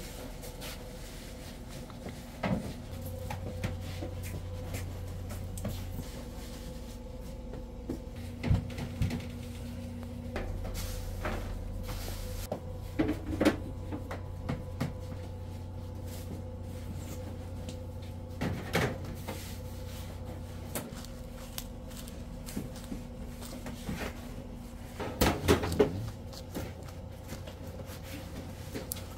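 Steady machine hum with occasional short knocks and clicks from handling, and a brief cluster of knocks about 25 seconds in.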